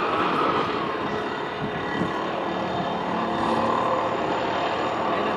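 Steady mechanical engine drone over a wash of noise, with faint held tones layered in.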